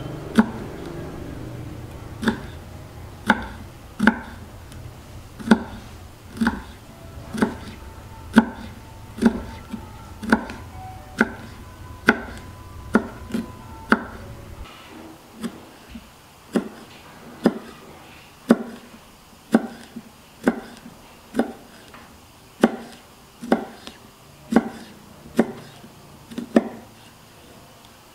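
Chef's knife slicing bird's-eye chilies on a wooden cutting board: sharp knocks of the blade hitting the board, evenly paced at about one a second. A low hum underneath stops about halfway through.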